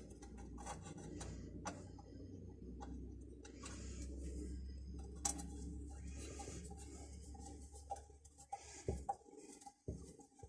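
Scattered light clicks, taps and rubbing of small parts being handled during wiring work on a machine's earth connection, over a low steady hum that stops about nine seconds in.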